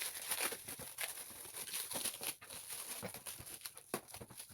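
Parcel packaging rustling, crinkling and tearing in irregular bursts with scattered sharp clicks as a laptop cooler's package is opened by hand.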